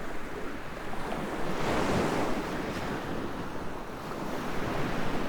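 Ocean surf breaking and washing up a sandy beach, a steady rush that swells about two seconds in and builds again near the end.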